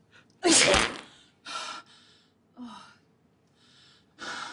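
A woman sneezes once, loudly, about half a second in, then takes several short breaths.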